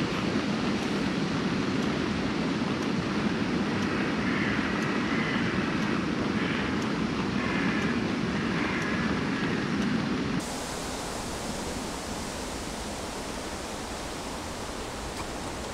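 Gas canister stove burning under a metal pot: a steady, even hiss, strongest low down. It stops abruptly about ten seconds in, and a quieter steady background hiss follows.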